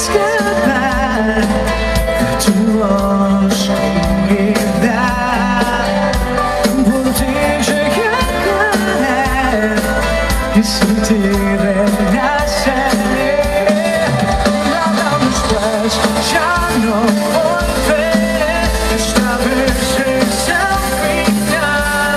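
Pop-rock song with a singer over a band, with bass and a steady drum beat throughout.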